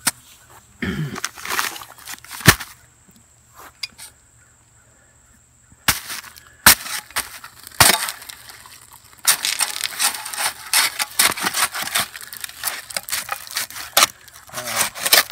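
Small square shovel jabbing and scraping in dry concrete mix packed around a steel pole in a post hole, gritty crunching strokes. A few separate sharp knocks come first, then rapid, busy scraping and crunching through the second half.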